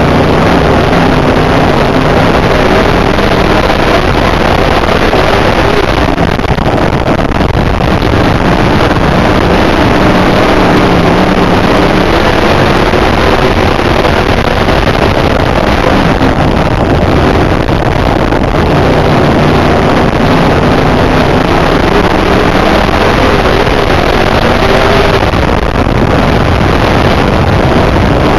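IMCA dirt modified race car's V8 engine under racing load, heard from inside the car, its note rising and falling in long swells as the throttle opens and closes. Wind buffets the microphone throughout.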